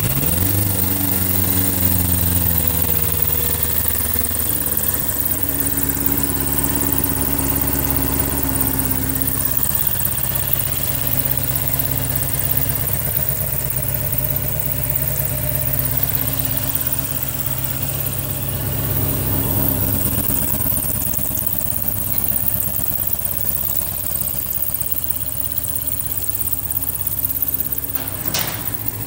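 A 2001 Triumph TT600's fuel-injected inline-four engine idling. It settles to a lower, steady idle in the first few seconds, with a single click near the end.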